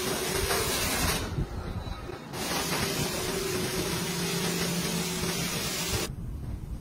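High-pressure washer jet spraying water onto a car's body: a steady hiss of spray with a faint hum underneath. The hiss breaks off for about a second just after the start and stops shortly before the end.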